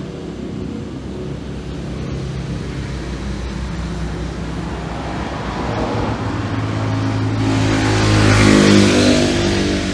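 A motor vehicle engine running steadily, growing louder near the end as if passing close by.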